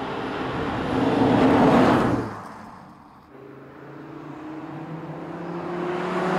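Audi RS3's 2.5-litre turbocharged five-cylinder engine and exhaust as the car drives toward the camera, growing louder to a peak about two seconds in and then dropping away quickly. A second approach follows, its engine note rising slowly and growing louder as the car nears.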